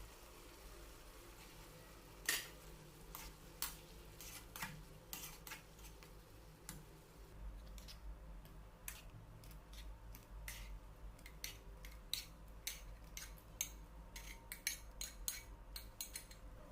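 Irregular sharp clicks and light clinks of kitchen utensils, the loudest about two seconds in, coming more often in the second half.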